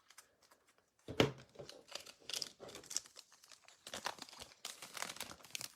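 A trading card pack's wrapper being torn open and crinkled by hand, a run of irregular rustling and crackling for about four seconds, starting about a second in.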